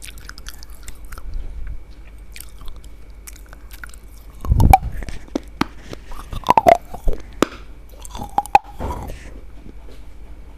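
Close-up chewing and biting of crunchy food: irregular crunches and clicks, with the loudest bites about halfway through and near the end, over a steady low hum.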